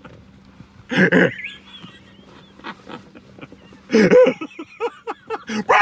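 A man laughing hard, with two loud bursts of laughter, one about a second in and one about four seconds in, and short breathy gasps between them.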